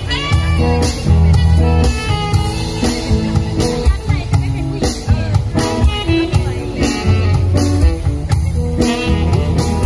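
Live band playing a song through PA speakers: guitar over a bass line and a steady drum beat.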